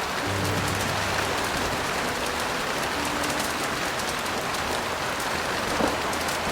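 Steady heavy rain hissing on a surface. Faint low held piano notes sound underneath.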